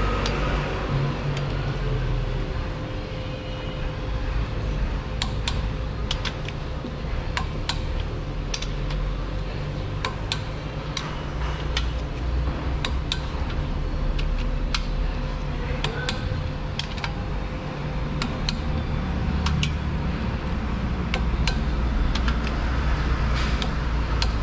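Sharp metallic clicks and clinks from a torque wrench, socket and engine bolts, coming at irregular intervals as bolts are torqued to 80 newton-metres, over a steady low hum.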